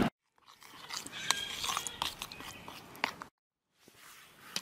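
A spoon stirring rehydrated applesauce in a plastic bowl: soft wet mashing with a few sharp clicks of the spoon against the bowl. The sound drops out twice to dead silence.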